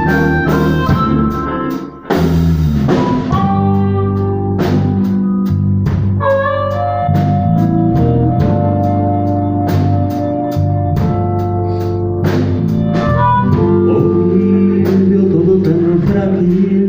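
A blues band playing an instrumental passage: long held notes on top, bass below and a steady drumbeat, with a short break about two seconds in before the band comes back in.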